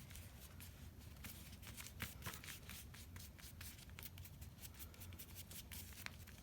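Faint rustling and small taps of paper collage pieces being handled and pressed down while gluing, over a low steady hum.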